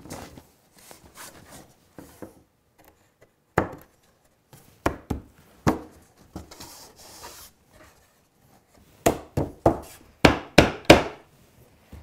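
Sharp wooden knocks as the glued dovetail joints of a wooden drawer box are pushed together and the tails tapped home. A few scattered knocks come first, then a quick run of about eight near the end.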